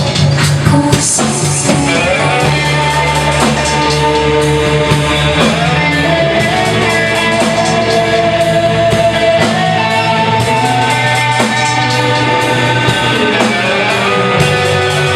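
Rock band playing: guitar chords and held notes over a drum kit keeping a steady beat.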